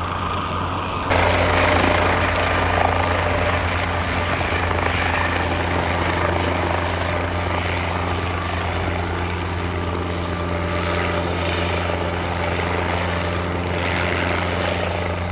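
Guimbal Cabri G2 light helicopter running close by: a steady low rotor hum with engine noise over it. It gets suddenly louder about a second in.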